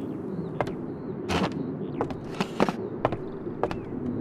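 Irregular light clicks and knocks of objects being handled at a wooden table, a few in quick clusters, over a low steady hum.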